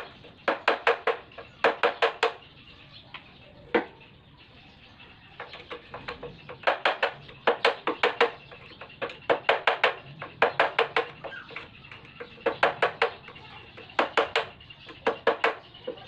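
A hammer striking a metal punch held against a motorcycle's steering stem lock nut, in quick bursts of three to six ringing metallic taps with short pauses between. The nut is being tightened to set the steering head (knuckle) bearing just right, neither loose enough to leave play nor so tight that the handlebar turns stiffly.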